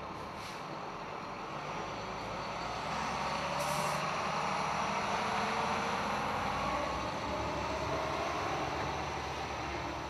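A heavy vehicle such as a truck passes by. Its engine and road noise build from about two seconds in and fade toward the end, with a short hiss just before four seconds in.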